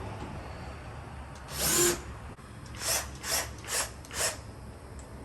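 A tool working wood: one longer noisy stroke, then four short strokes about 0.4 s apart.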